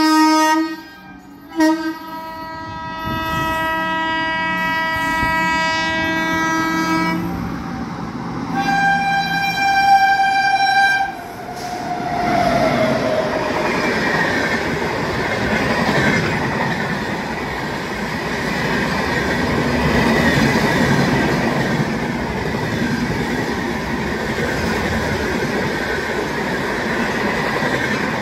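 Electric locomotive of an Indian express train sounding its horn in a long blast that breaks briefly about a second in, then a second shorter blast about nine seconds in. After about twelve seconds the train's LHB coaches run past on the track as a steady loud rushing of wheels and rails.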